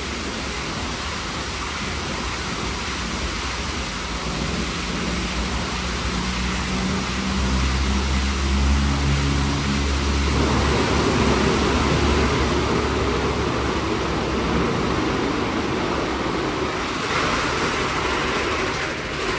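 WashTec SoftCare² Pro rollover car wash in its shampoo wash stage: a steady hiss and splash of water spraying onto the car, with a low motor hum through the middle.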